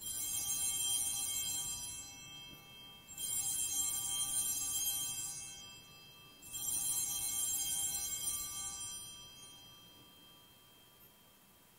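Altar bells rung three times at the elevation during Mass, each ring a bright cluster of high tones that fades over a couple of seconds, about three seconds apart. The bells mark the moment the consecrated host is raised.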